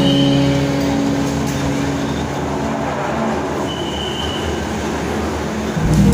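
Ropeway gondola cabin running through the terminal machinery: a steady mechanical rumble and rattle, with a short high squeal right at the start and another about four seconds in.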